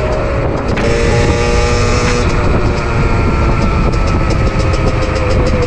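Beta RR 50cc two-stroke enduro motorcycle engine running at a steady cruise while riding, its pitch holding, then shifting in small steps. Heavy wind rumble over the microphone sits underneath.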